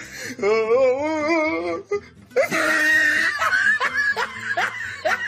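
A person laughing: a long, wavering laugh, then a louder shriek of laughter about two and a half seconds in, followed by a quick run of short, rising laughs.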